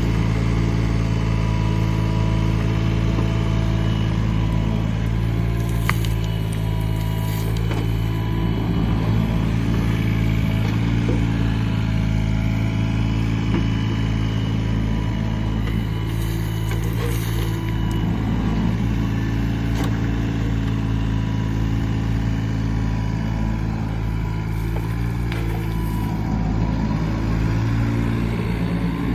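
Komatsu PC20R-8 mini excavator's diesel engine running at a steady speed, with faint whines rising and falling over it and a few brief knocks.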